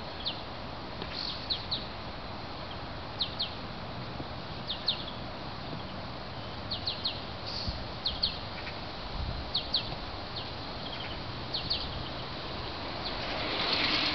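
Small birds chirping repeatedly in short high chirps, often in pairs, over a steady outdoor hiss. A little past halfway come two faint low thuds, the mother rabbit's hind-foot warning thumps on the ground. Near the end comes rustling handling noise.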